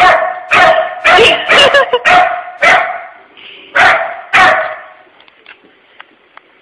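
A puppy barking loudly and repeatedly, about seven quick barks in the first three seconds and two more around four seconds in, then stopping. It is alarm barking at an unfamiliar object.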